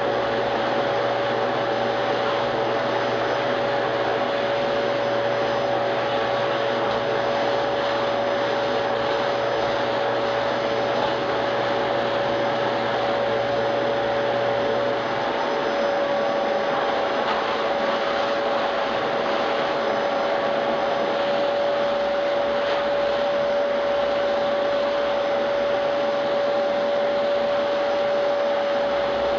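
Electrolux Ergolite vacuum cleaner running steadily: rushing air with a steady motor whine. A lower hum underneath stops about halfway through.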